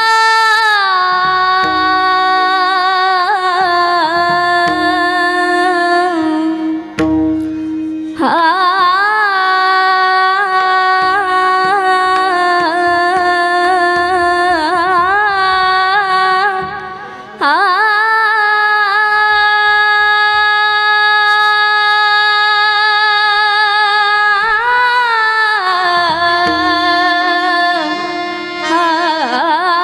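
A woman singing a long wordless opening alaap of a Marathi bhajan: long held notes with wavering ornamental turns, with breaks for breath about seven and seventeen seconds in, over a steady drone and soft drum strokes.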